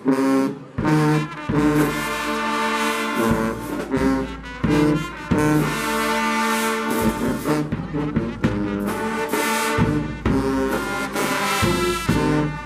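Marching band brass section playing a tune in unison, with trumpets, mellophones and sousaphones over steady drum and cymbal hits.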